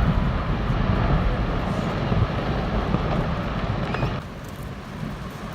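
Deep rumbling, rushing noise of glacier ice collapsing into the sea and the wave it throws up, dropping off abruptly about four seconds in to a quieter rush.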